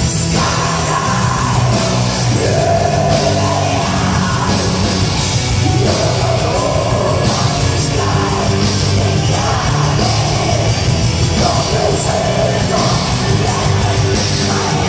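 Heavy metal band playing live, with a singer holding long sung lines over the loud, dense full-band sound.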